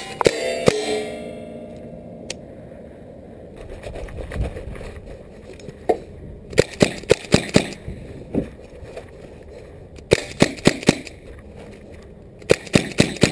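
Sig Sauer MCX Virtus PCP .22 air rifle fired semi-automatically in three quick strings of about five shots each, each shot a sharp crack. A metallic ring sounds near the start, and a few single shots fall before the first string.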